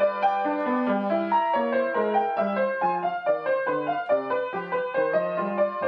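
Solo piano playing a flowing piece, a melody over a moving bass line, with new notes struck every fraction of a second.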